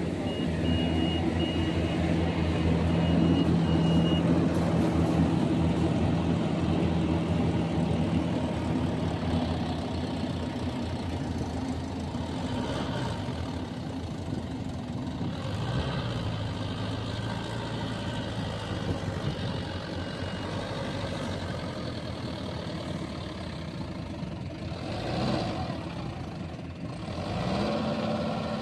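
Mahindra Yuvo 575 DI tractor's four-cylinder diesel engine running under load as the mud-caked four-wheel-drive tractor struggles through deep paddy-field mud. The engine note drops about halfway through and rises briefly near the end as it revs.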